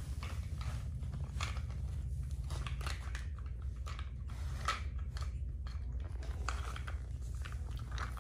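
Scattered small clicks, taps and scuffs as a baby monkey's hands and feet scrabble over a fabric-covered pet bed, over a steady low hum.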